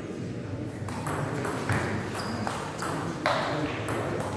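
Table tennis rally in doubles play: the ball clicks back and forth off paddles and table in a quick, irregular series of sharp ticks that starts about a second in.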